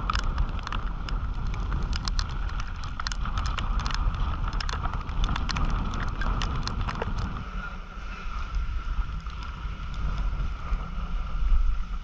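Strong wind buffeting the microphone on a sailboat under way in rough seas, with the sea rushing along the hull. A rapid run of sharp clicks and taps fills the first seven seconds or so, over a steady high whine.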